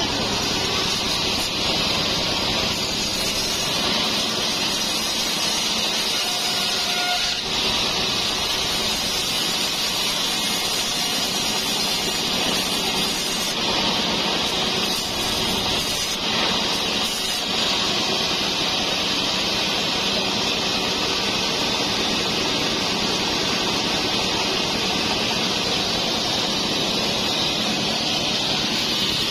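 Band sawmill running steadily, its blade cutting lengthwise through a trembesi (rain tree) timber block; an even, unbroken noise with no pauses.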